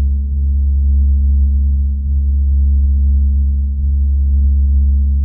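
A deep, steady bass drone that dips slightly about every two seconds, the kind of sustained electronic tone used in a showreel's music track.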